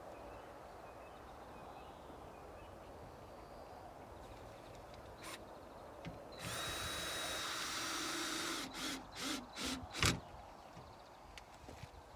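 Red cordless drill worked into the timber wall of a shed: about six seconds in it runs steadily with a high whine for about two seconds, then gives four or five short trigger bursts, ending in a sharp knock.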